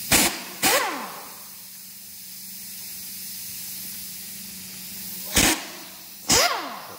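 Pneumatic impact wrench loosening bolts on an engine's front cover: four short bursts in two pairs, one pair near the start and one near the end, each followed by a falling whine as the air motor spins down.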